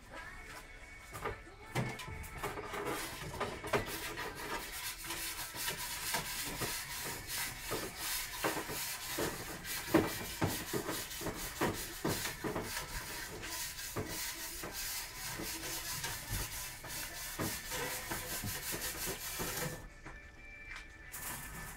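Mother cat licking a newborn kitten clean just after birth: a dense, continuous run of rasping, scraping tongue strokes that quietens near the end.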